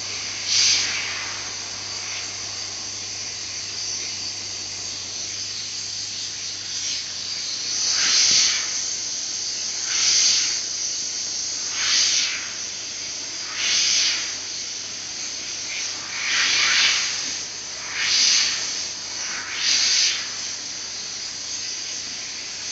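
Laser cutting machine's cutting head hissing steadily with its assist gas as it cuts, with louder bursts of hiss about every two seconds from about eight seconds in, over a low steady hum.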